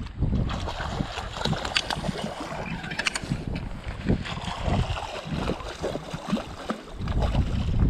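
Wind buffeting the microphone in uneven gusts over outdoor water noise, with a scatter of short clicks and splashy crackles in the first half.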